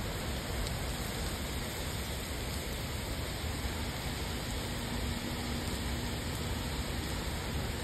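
Steady rain: an even, continuous hiss with no single drops standing out.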